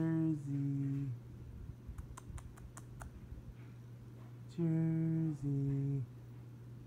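A person's voice twice sounding a two-note sing-song call, a held higher note stepping down to a lower one, once at the start and again near the end.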